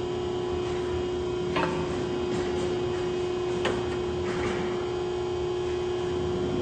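Hydraulic pump of a JMT PBF 2560 CNC hydraulic press brake running with a steady hum, while the machine waits between strokes. Two sharp clicks come, about one and a half and three and a half seconds in.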